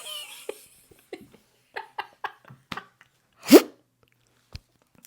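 Mouth-made sound effects: a string of short clicks and pops, then a loud, quick upward vocal whoop about three and a half seconds in, and one last click.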